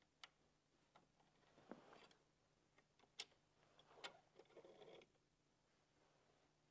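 Near silence with a few faint, separate clicks and a light rustle of small metal parts being handled on the saw's blade arbor.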